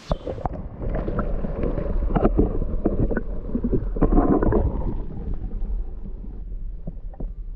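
Underwater sound picked up by a GoPro submerged in a fish pond: a muffled low rumble with gurgling and irregular knocks, all the high sounds cut off. It is busiest in the middle and eases off in the last couple of seconds.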